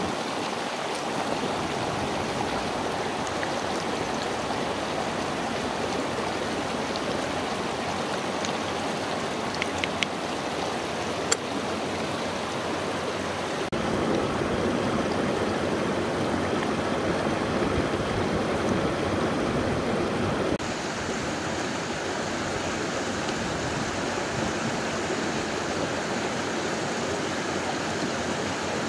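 Steady rushing of stream water, with a few brief sharp crackles near the middle.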